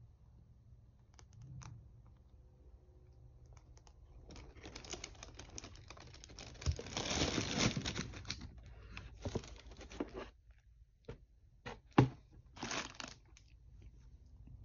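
Tissue wrapping paper rustling and crinkling for several seconds as a sneaker is handled in its box, loudest midway. Then come a few sharp clicks, the loudest about twelve seconds in, and short rustles.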